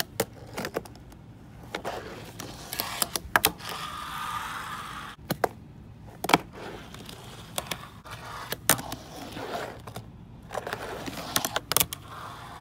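Fingerboard on a cardboard ramp and desktop: many sharp clacks as the small deck and wheels land and strike the surface, with a stretch of the tiny wheels rolling a few seconds in.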